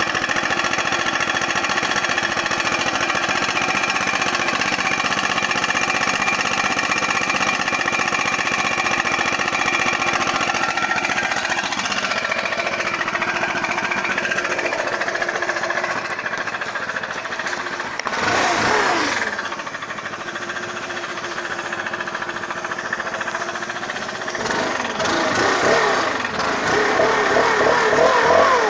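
Stihl BR 600 Magnum backpack blower's 4-MIX engine running steadily as it warms up. Its pitch shifts about halfway through, it revs up and back down once about two-thirds in, and near the end the throttle is blipped in quick repeated revs.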